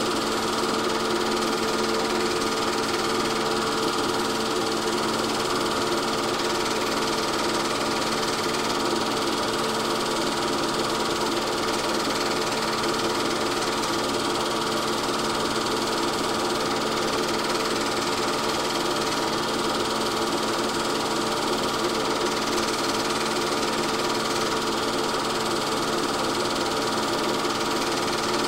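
8 mm film projector running steadily, its motor and film-advance mechanism giving an even mechanical whir with a constant pitch.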